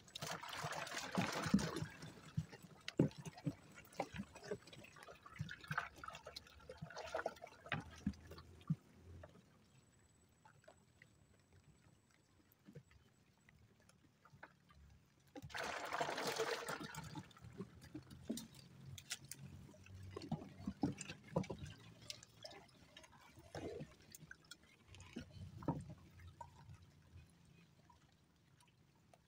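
Water splashing and pouring in two loud bursts, one at the start and one about halfway through, with scattered knocks and lighter trickling in between.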